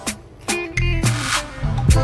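Background music with a drum beat and a steady bass line.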